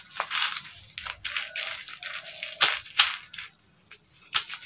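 Bubble wrap and packing tape crinkling and crackling as they are cut and pulled off a bottle with small scissors, in irregular bursts, with two sharp clicks about three seconds in.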